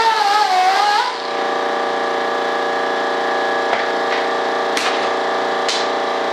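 Hand-held rotary tool spinning a cone-shaped buffing wheel against a mold, its whine sagging and wavering under load, then backing off about a second in. A steady hum of several tones carries on, with a few light clicks and taps as parts are handled on the bench.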